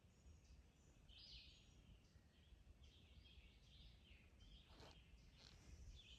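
Near silence: faint songbird chirps and calls, with a low rumble of wind or handling and a faint click a little before the end.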